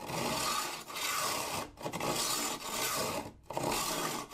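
Serrated knife pulled back and forth through the manual honing stage (stage three) of a Chef's Choice 250 Diamond Hone Hybrid sharpener, with no motor running. Steel scrapes over the abrasive in five even strokes of just under a second each, with short breaks between them.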